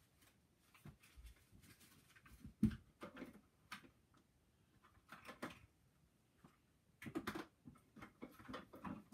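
Faint, irregular rustles and soft knocks of handling, the loudest a single thump just under three seconds in.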